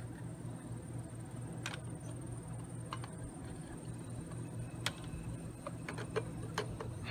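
Scattered sharp clicks and taps as a propane cylinder's nozzle is handled against the PVC chamber fitting of a homemade potato gun, over a steady low hum. The loudest clicks come about five and six seconds in.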